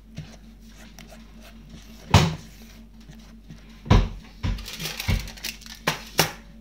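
Kitchen handling sounds of a plastic mixing bowl and silicone spatula as thick batter is scraped around: a sharp knock about two seconds in, then a run of knocks and scraping clatter over the last two and a half seconds.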